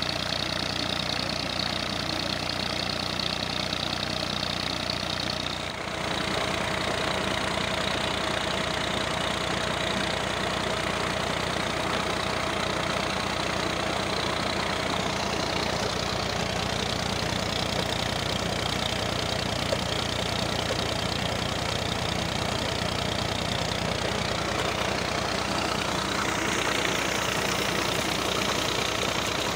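A Massey Ferguson tractor's diesel engine running steadily under load, turning a tubewell pump through its PTO shaft and wooden pulley. Water gushes from the pump's outlet pipe into a brick tank.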